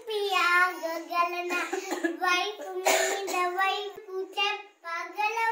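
A child singing a song, in phrases of held notes with a short break near the end.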